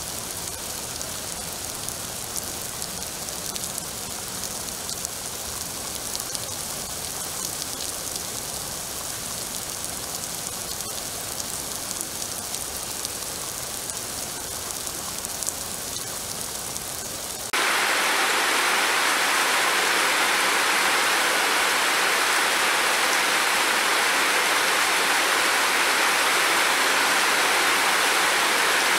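Steady rainfall hissing, with a few sharp drop ticks. About two-thirds of the way through it cuts abruptly to a louder, denser downpour.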